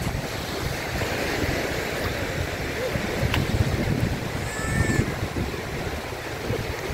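Small surf washing in over shallow water at the shoreline, a steady rushing hiss, with wind rumbling on the microphone.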